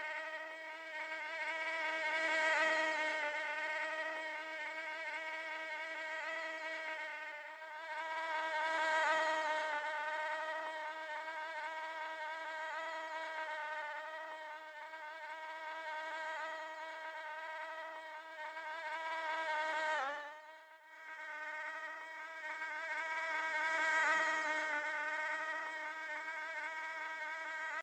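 Mosquito in flight: the steady, high-pitched whine of its wingbeats, swelling louder three times and dipping briefly with a drop in pitch about twenty seconds in.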